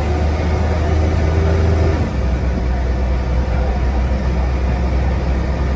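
Diesel engine of a preserved single-deck bus running under way, heard from inside the passenger saloon: a loud low drone with a steady whine over it. About two seconds in, the engine note drops and the whine fades.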